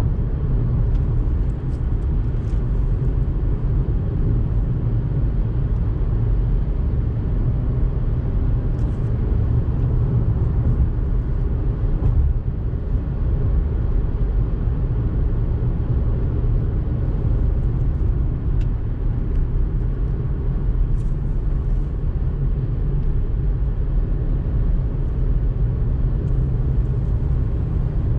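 Car driving along a two-lane road, heard from inside the cabin: a steady low rumble of engine and tyre noise with a few faint ticks.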